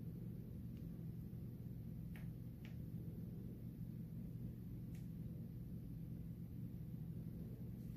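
A few faint, light clicks of small metal lock pins handled between the fingertips, over a steady low hum.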